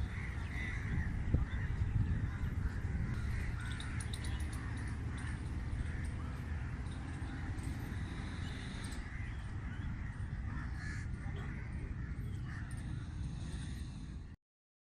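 A group of birds calling and chirping over a steady low rumble. The sound cuts off suddenly near the end.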